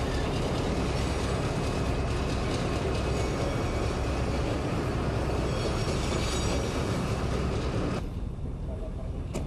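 US Air Force diesel switcher locomotives running as they move a rocket transporter along the rails, with a steady engine rumble and the rattle and clicking of steel wheels and rail cars. The higher clatter drops away abruptly about eight seconds in, leaving the rumble.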